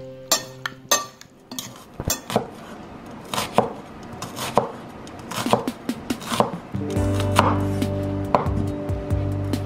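Kitchen knife cutting through an onion onto a wooden cutting board, with sharp, irregular knocks about once a second. Background music comes in near the end.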